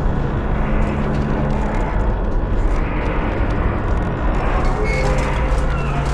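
Tower crane's steel structure creaking and grinding, over a dense rumble and a steady low hum that drops out for a few seconds in the middle. A few short high squeaks come about five seconds in.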